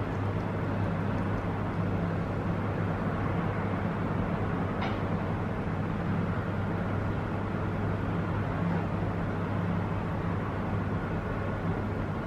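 Steady outdoor background hum with a low drone that holds unchanged throughout, and one faint short tick about five seconds in.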